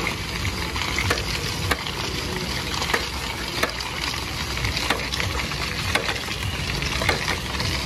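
A large hand-turned ice-cream roller drum spinning on its stand: a steady hissing, rolling noise with a sharp click about once a second.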